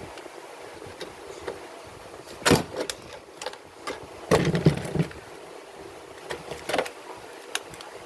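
Hands-on work noise: several knocks and clatters, the loudest about two and a half and four and a half seconds in, with lighter clicks near the end.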